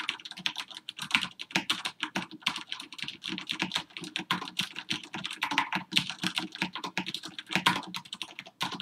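Fast, continuous typing on a QPAD MK-50 mechanical keyboard with linear Cherry MX Red switches: a dense, uneven run of keystrokes, each a short "tok".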